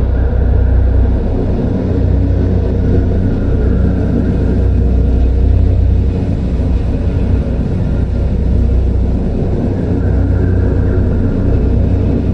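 Horror forest ambience: a deep, steady low rumbling drone under a dense dark wash, with a faint higher tone swelling briefly near the start and again about ten seconds in.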